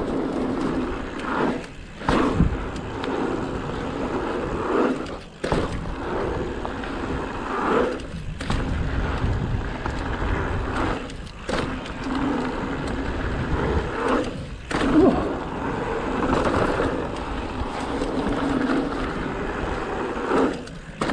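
Mountain bike rolling fast over a loose gravel and dirt trail: steady tyre noise and bike rattle. The noise drops out briefly about six times, every few seconds, as the wheels leave the ground over the jumps, and picks up again on each landing.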